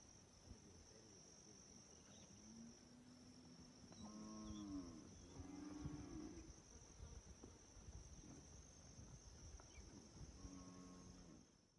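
Faint cattle mooing several times, over a steady, high-pitched insect drone.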